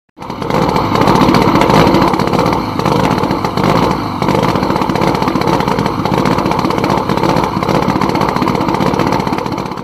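A rally car's engine running loud and steady, starting abruptly.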